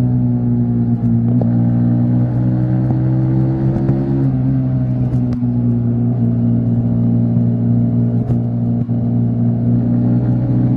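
Yamaha MT-15 V3's single-cylinder engine running at a steady highway cruise, its pitch holding nearly level with a small change about four seconds in. A few faint ticks sound in the second half.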